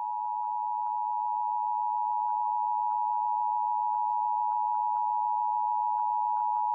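Emergency Alert System attention signal: the steady two-tone alert (853 and 960 Hz sounded together) held unchanged, announcing that an emergency alert message, here a required monthly test, is about to be read.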